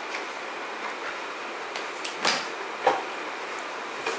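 Hard plastic pieces knocking together: three or four short separate knocks over a faint background hiss, the loudest a little past two seconds in, the next about half a second later.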